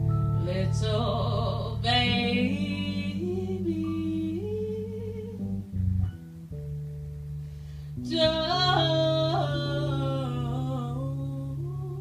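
Live jazz band music: a singer sings two phrases with vibrato over held bass notes, with a short pause in the voice about six seconds in.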